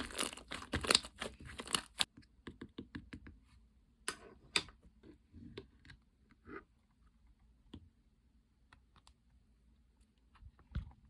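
Slime being squished and poked by hand: dense crackling and crinkling for about the first two seconds, then scattered small pops and clicks that grow sparser.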